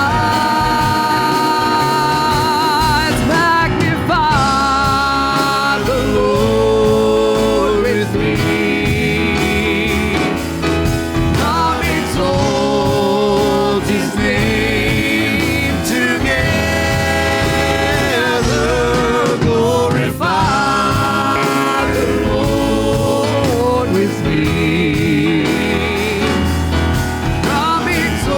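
Gospel worship music: sung voices with vibrato over instrumental backing.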